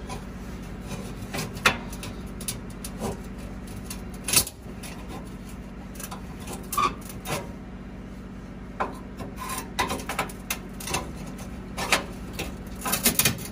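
Metal parts of a 1950s Dixie range being worked loose and lifted: scraping and rubbing with scattered clunks, the sharpest about one and a half and four and a half seconds in and a flurry near the end. A steady low hum runs underneath.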